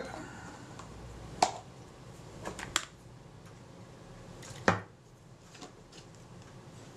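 A few separate light clicks and taps from small parts and tools being handled on a workbench, with quiet room noise between; the loudest come about a second and a half in and near five seconds in.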